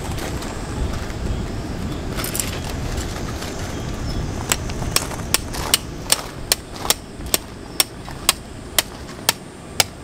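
A metal tent peg being struck with a hammer at the base of a tent, about a dozen sharp, evenly spaced strikes roughly two a second, starting about halfway through.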